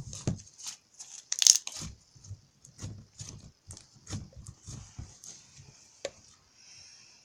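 Slime worked and stretched by hand to blow a slime bubble: irregular sticky clicks and crackles, with one louder click about one and a half seconds in.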